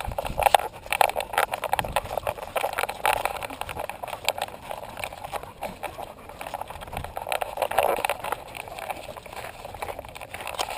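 Handling noise from an action camera mounted on a dog's harness: irregular clicks, knocks and rubbing of the camera housing and straps as the dog moves about, with faint voices of people in the background.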